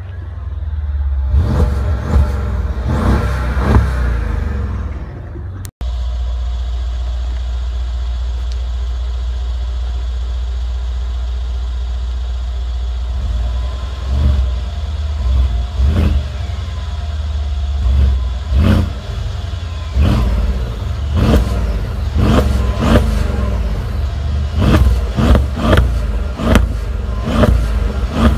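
Mercedes-Benz ML500 (W166) twin-turbo V8 revved while parked, heard inside the cabin. After a cut, its exhaust idles steadily, then is blipped repeatedly from about halfway through, the revs coming in quick succession near the end.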